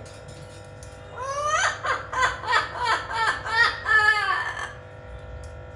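Blue-fronted Amazon parrot vocalizing: a rapid run of about eight pitched, wavering calls, one after another, beginning about a second in and stopping just before the end, like mimicked laughter or crying.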